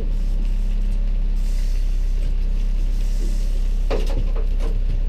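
Boat motor running steadily with a low drone. A short knock and clatter come about four seconds in.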